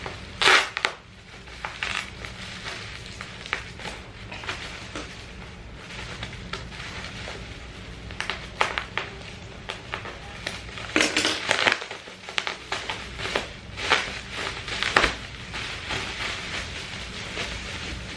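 Plastic bubble-wrap packaging crinkling and crackling as it is torn open by hand and pulled off a paperback book, with irregular sharp crackles and louder bursts about half a second in and again around eleven and fifteen seconds.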